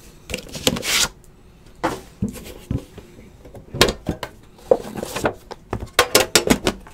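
Handling a trading-card box: cardboard rubbing and sliding, then light knocks and scrapes of a thin metal tin on the table, with a quick run of clicks and taps about five to six and a half seconds in.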